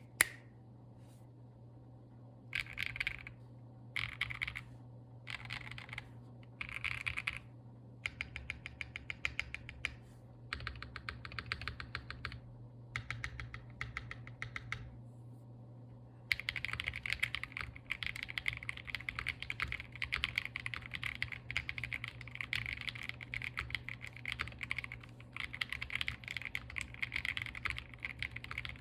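QK60 60% custom mechanical keyboard with lubed KTT Hyacinth linear switches, an FR4 plate and PBT keycaps being typed on. It starts with short runs of keystrokes separated by pauses, then turns to continuous fast typing a little past halfway.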